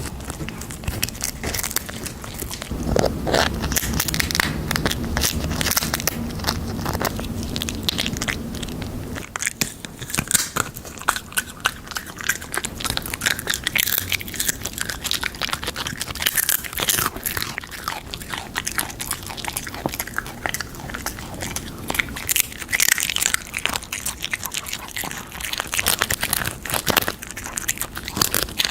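Pets crunching and chewing crisp chips close to the microphone: a dense, irregular run of loud crunches and bites.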